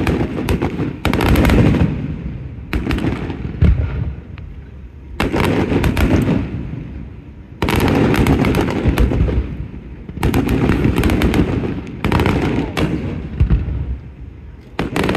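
Aerial fireworks bursting overhead in rapid volleys: dense runs of sharp bangs and crackling reports, each lasting a second or two and coming back every two to three seconds.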